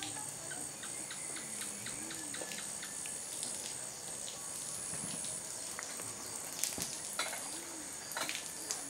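Steady high-pitched insect chirring in a tropical village ambience. A low rising-and-falling call recurs every couple of seconds, and a few short knocks come in the second half.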